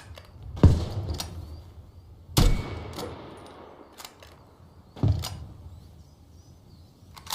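Carcano rifle with a grenade launcher sound effect: three heavy thumping shots roughly two seconds apart, each dying away, with small mechanical clicks between them and a few more clicks near the end.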